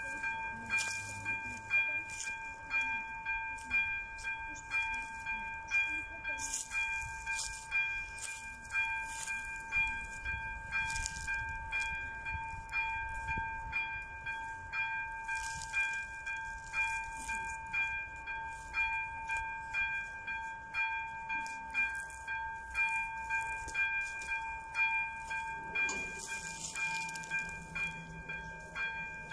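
Electronic warning bell of a Czech railway level crossing, ringing in a steady, evenly repeating ding.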